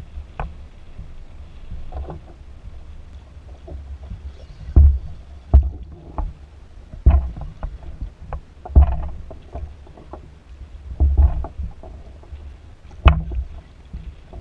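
Water slapping and knocking against a plastic fishing kayak's hull every second or two, over a steady low rumble of wind on the microphone.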